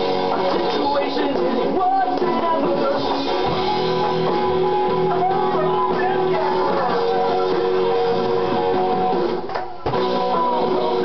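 Small band playing live: a guitar with a singer at a microphone. The music drops briefly about nine and a half seconds in.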